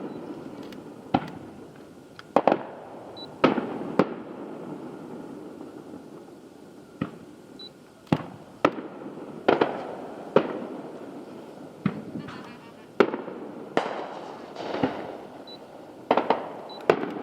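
Aerial fireworks bursting in an irregular run of sharp bangs, each trailing off in an echoing rumble, with a patch of crackling shells about two-thirds through.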